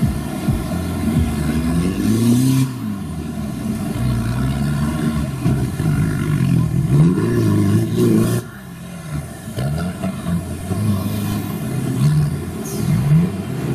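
A competition off-road 4x4's engine revving hard, its pitch rising and falling again and again as the throttle is worked. The revs drop off sharply a little past halfway, then climb again.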